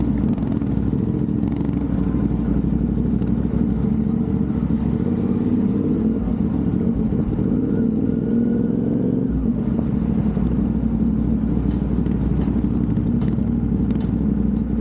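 CFMOTO 450NK's parallel-twin engine running through an aftermarket Orion exhaust while the bike is ridden, a steady loud exhaust note whose pitch shifts a little around the middle.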